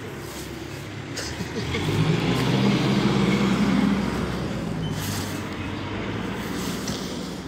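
A motor vehicle drives past. Its engine hum builds about two seconds in, is loudest for a couple of seconds, then fades away.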